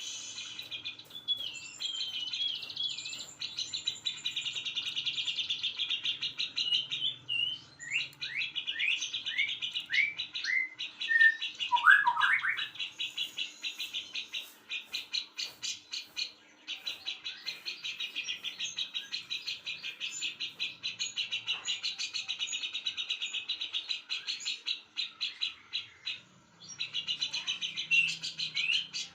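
Songbirds singing: long, fast trills of repeated high notes broken by short pauses, with a run of downward-slurred whistles and a louder swooping note about a third of the way through.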